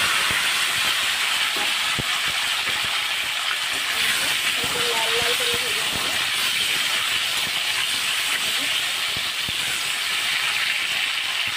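Raw potato chunks sizzling in hot mustard oil in a kadai: a loud, steady frying hiss. A few light clicks come from a metal spatula turning the pieces.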